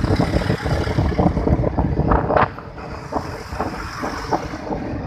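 Wind buffeting the microphone over the hum of road traffic. The gusts are strongest in the first half and ease off about halfway through.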